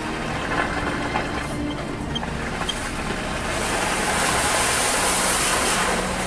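Jeep Liberty off-roader's engine running, with a hissing rush of noise that builds from about three and a half seconds in and eases near the end.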